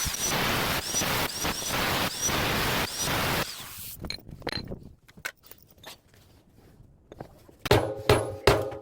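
Loud, noisy clattering and grinding of metal work on a top-loading washing machine being dismantled, with repeated strokes, stopping about three and a half seconds in. A few faint knocks follow, then a percussive background music beat starts near the end.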